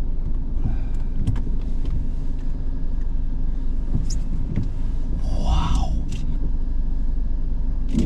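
Steady low rumble heard from inside a stopped car's cabin, with a brief higher-pitched sound about five and a half seconds in.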